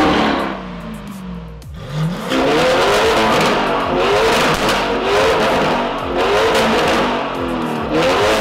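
Lamborghini Urus twin-turbo V8 revved repeatedly at a standstill through a Fi Exhaust valved exhaust. One rev comes at the start, then from about two seconds in there is a run of quick blips about a second apart, each rising and falling in pitch. The exhaust valves are closed at first and open near the end.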